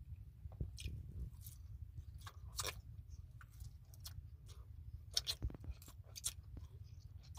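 Close-up mouth sounds of a person chewing fried food and licking his fingers: wet smacks and sharp lip and tongue clicks, scattered irregularly, over a steady low rumble.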